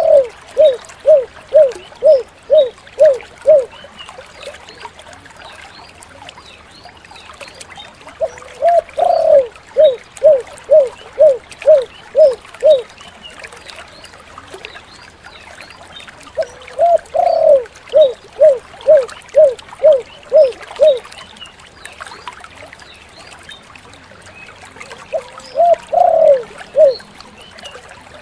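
Spotted dove (tekukur) cooing in repeated phrases: each phrase opens with a longer coo and runs into a string of short, evenly spaced coos, about two a second. Four phrases come roughly every eight seconds, the last one cut short near the end, over a steady hiss with faint high chirps.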